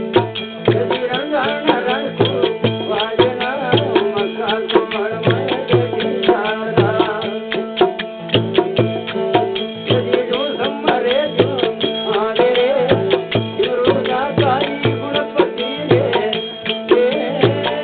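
Devotional bhajan music: a tabla-type drum keeps a steady beat of about two bass strokes a second under a sustained drone and a wavering melody line.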